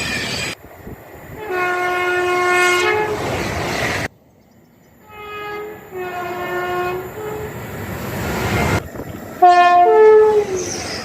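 British train horns sounding two-tone blasts, each switching between a higher and a lower note, three times in separately cut clips.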